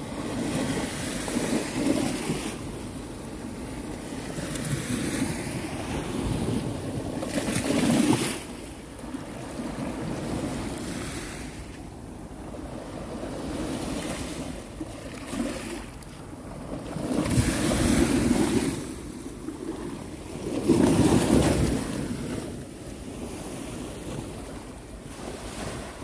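Small sea waves breaking and washing up onto a sandy beach, the surf rising and falling every few seconds as each wave comes in, with the loudest washes about two-thirds of the way through.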